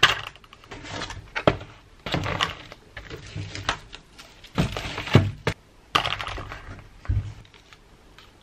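Groceries being unpacked and set down on a counter: plastic tubs and packaging knocking against the surface and crinkling, in irregular clunks and rustles with a few heavier thuds.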